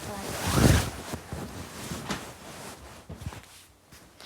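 Close handling noise on the microphone: a loud rush of air about half a second in, then scattered knocks and rustles.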